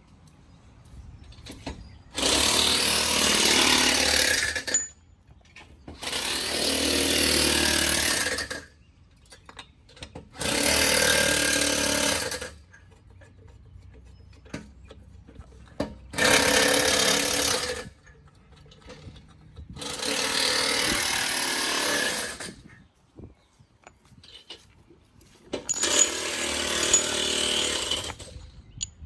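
Impact wrench driving lug nuts on a truck wheel: six separate runs of about two to three seconds each, with short pauses between.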